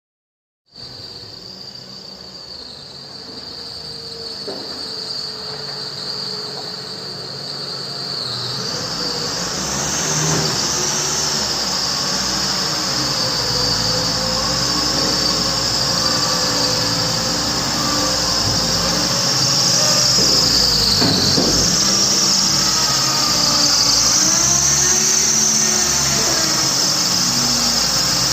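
A T4 van's engine running with a loud, high, continuous whistle from the belt drive that wavers and climbs in pitch about eight seconds in, growing louder overall. The whistle sounds like a slipping belt but comes from the idler and tensioner pulleys, whose bearings are seizing.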